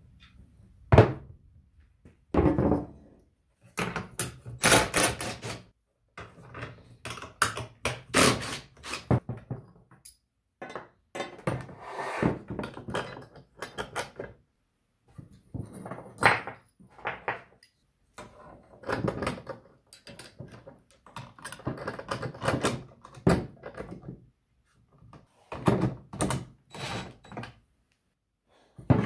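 Steel mirror-bracket tubes, mounting plates and small hardware handled and set down on a wooden workbench: irregular clanks, knocks and rattles with short pauses between them.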